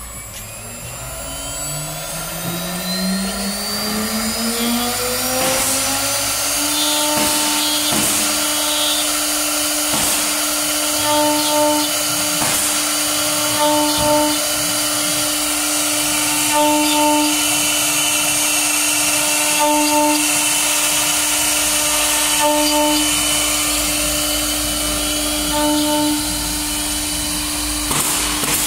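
CNC router spindle spinning up with a rising whine over about the first seven seconds, then running at a steady speed as the machine starts the job on the rotary axis. The sound swells regularly, about every three seconds.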